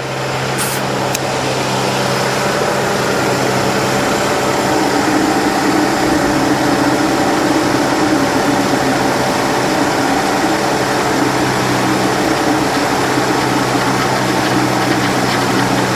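2007 Toyota FJ Cruiser's 4.0 L V6 engine idling steadily, with the newly replaced power steering pump making noise: the pump is running low on fluid with air still in the system. The level rises slightly over the first couple of seconds, then holds.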